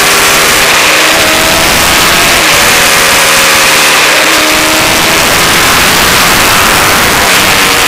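Honda Fireblade's inline-four engine running at road speed, its pitch rising and falling several times as the throttle opens and closes. Heavy wind rush on the microphone sits over it.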